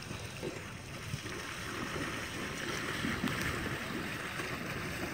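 A horse's hooves splashing through shallow pond water as she walks along the edge, step after step, louder from about two seconds in.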